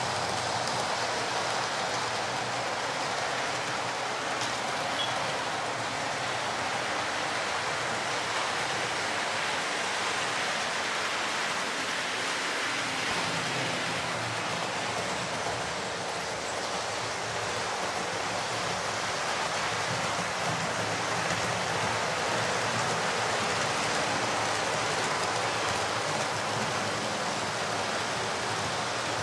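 Model trains, Class 43 HST sets among them, running round a model railway layout: a steady, even rushing whir of small motors and wheels on the track.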